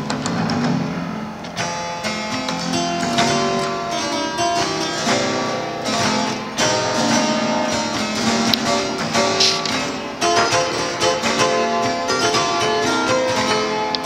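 Two-manual harpsichord being played: a quick, unbroken passage of plucked notes.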